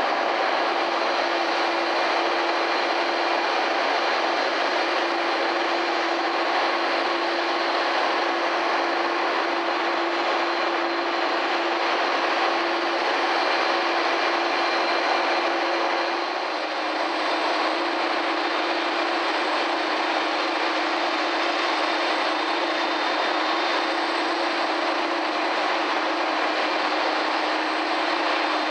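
Qantas twin-engine jet airliner's engines running at raised thrust, a steady jet roar with a constant hum and a faint high whine. The airliner is not moving despite the thrust, a sign that something is wrong with it.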